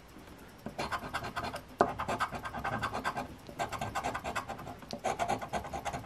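Silver coin scratching the coating off a paper lottery scratch ticket in rapid back-and-forth strokes. It starts just under a second in and runs in bursts, with a short pause near the middle.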